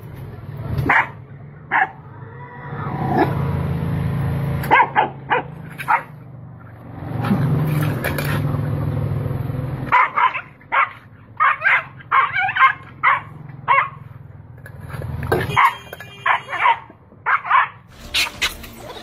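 A dog barking in quick runs of short, sharp barks during a scuffle, with two stretches of low, steady rumble between the runs.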